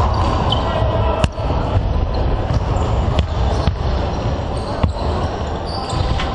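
Basketballs bouncing irregularly on a hardwood court floor, a sharp thud every half second to a second, over a steady murmur of voices in the hall.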